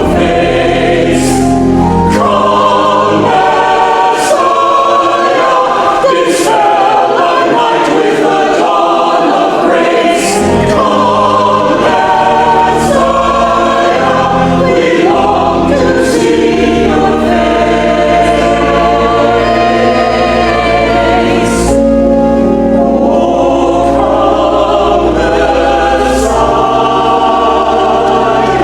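A mixed church choir singing in parts, with long-held low notes sounding under the voices.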